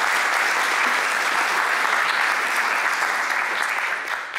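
Audience applauding, a dense steady clapping that dies away at the very end.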